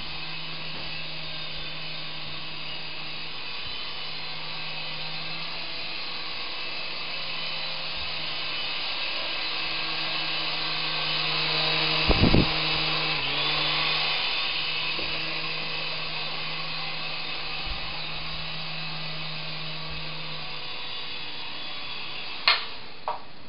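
Small coaxial remote-control helicopter in flight, its motors and two rotors giving a steady whirring whine. About halfway through comes a quick cluster of thumps, and near the end a sharp knock.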